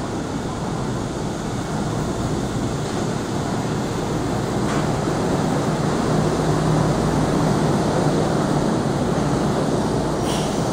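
Chiba Urban Monorail suspended rubber-tyred train moving past the platform: its running noise grows louder from about halfway through, with a steady low hum, over the station's echoing background noise.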